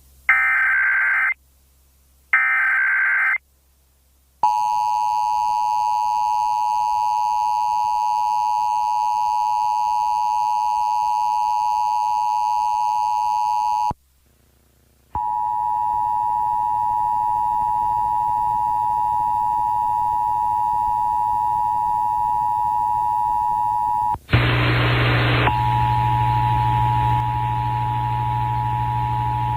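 Emergency Alert System test signal: two short, harsh data bursts of the digital header, then the long, steady attention tone. The tone breaks off for about a second midway and resumes. Near the end a burst of static and a low buzz join it.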